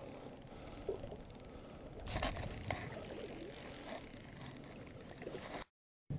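Creek water splashing and sloshing in the shallows as a hooked steelhead is brought in and landed, with a few short knocks; the loudest is about two seconds in. The sound cuts out briefly near the end.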